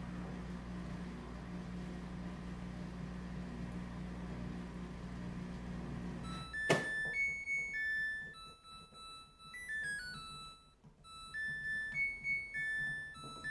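Samsung front-load washing machine running with a steady low hum that stops with a sharp click about halfway through. It then plays its end-of-cycle chime, a short melody of high electronic beeper notes, signalling that the wash is finished.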